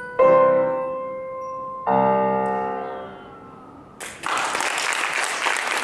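Upright piano playing the closing chords of a piece: two chords, each struck and left to ring and fade. About four seconds in, an audience starts applauding.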